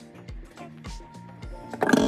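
Background music with a steady beat, and a brief louder burst just before the end.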